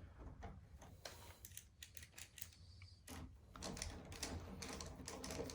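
Faint, irregular clicks and scrapes of a Phillips screwdriver turning the screws of a door latch faceplate into the door edge.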